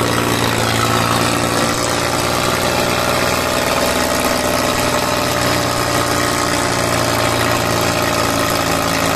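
Diesel tractor engine running at a steady speed, a continuous even engine note.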